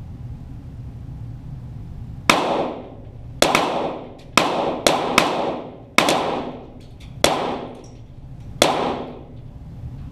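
.22 Walther GSP target pistol shots, about eight in an irregular string, each a sharp crack with an echoing tail from the range walls.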